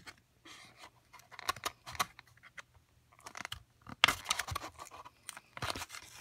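Plastic blister packaging being handled and pulled apart: irregular crackles, scrapes and clicks, with a louder burst of crinkling about four seconds in.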